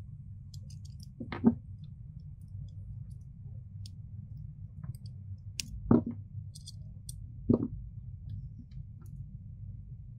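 Small metal parts of a titanium keychain flashlight clicking and tapping as they are handled and fitted together, with three sharper knocks: about a second and a half in, at six seconds, and at seven and a half seconds. A steady low hum runs underneath.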